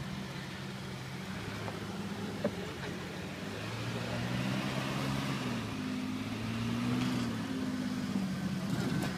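Lifted 1999 Jeep Cherokee XJ's engine running at low revs as it crawls over boulders, the revs rising a little about four seconds in and again around seven seconds. A single sharp click sounds about two and a half seconds in.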